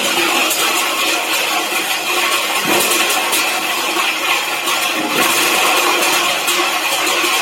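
Refrigerator foam shredding machine running, a loud, steady mechanical noise with scattered crackles as it shreds waste.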